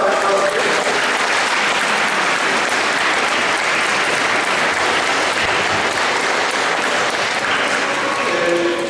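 Audience applauding steadily: a dense, even clapping from a large crowd.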